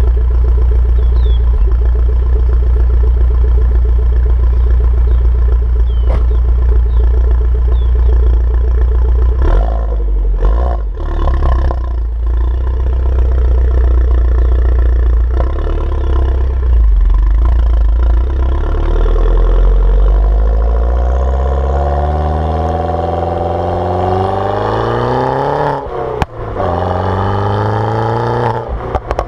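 Exhaust of an R56 Mini Cooper S's turbocharged 1.6-litre N14 four-cylinder, fitted with a JCW exhaust, decat and JCW tuning software. The engine holds a steady speed, gives a few sharp pops about ten to twelve seconds in, then revs rise steadily under acceleration. A sharp crack and a drop in revs come about 26 seconds in, and the revs climb again.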